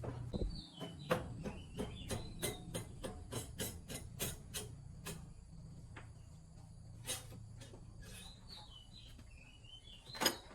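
Irregular light clicks and taps of hand tools at work on a motorbike engine, about two or three a second in the first half and sparser after, with a small bird chirping in short falling phrases in the background.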